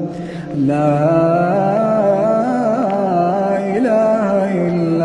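Quran recitation in the melodic tajweed style: a single voice holds long, ornamented notes that waver up and down, with a short breath near the start.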